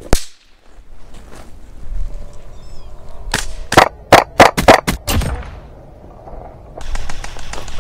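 A toy cap gun goes off once with a sharp, loud crack. A few seconds later an airsoft rifle fires about seven quick, uneven shots in under two seconds.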